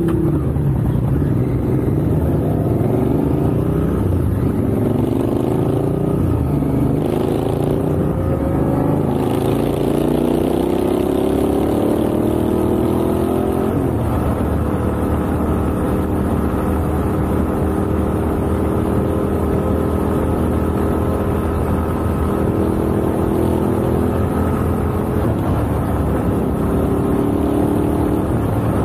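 Sport motorcycle engine heard from on the bike, its pitch rising in several sweeps through the first half as it accelerates through the gears, then holding steady as it cruises.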